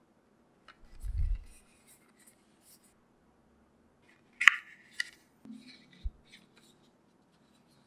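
Hands handling and opening a small cardboard packaging sleeve: a dull bump about a second in, then sharp, crisp paper-and-cardboard scraping and clicks around the middle as the sleeve is opened, with lighter rustles and a soft tap near the end.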